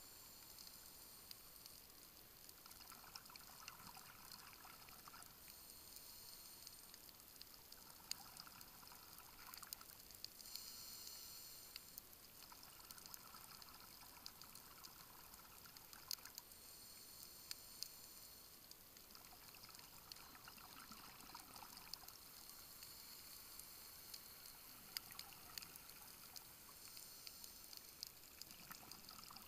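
Scuba divers' exhaled bubbles gurgling underwater, picked up by a dive camera, in bursts of about two seconds that come roughly every five or six seconds. A faint steady hiss with scattered sharp clicks runs beneath them.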